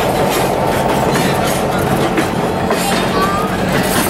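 Passenger train cars rolling slowly past, with a steady rumble and wheels clicking over the rail joints.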